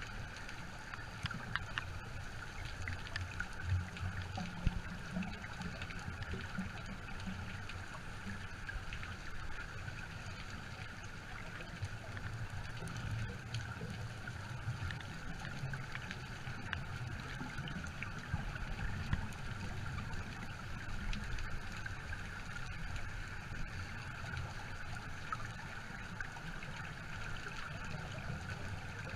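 Muffled underwater water noise picked up by a camera in a waterproof housing: an uneven low sloshing rumble over a steady hiss, with scattered faint clicks.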